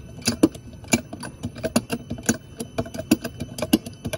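Irregular metallic clicks and light rattles, about three or four a second, from a hydraulic cutless bearing press and its chain. The jack is being worked to push the old rubber cutless bearing out of the boat's propeller-shaft strut, and the bearing is nearly out.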